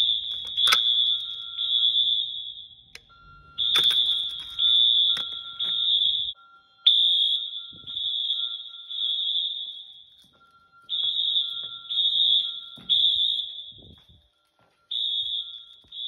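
Wheelock fire alarm horns sounding a shrill, high-pitched horn tone in repeating groups of three blasts with a short pause between groups, the temporal-three evacuation pattern of a building fire alarm set off for a test.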